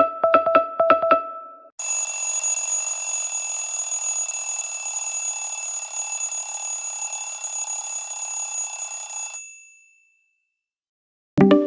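Mobile phone ringtones playing. A quick trill of short repeated beeps, about five a second, stops about two seconds in. Then an old-style telephone-bell ringtone rings steadily for about seven and a half seconds and stops, and near the end the next ringtone begins.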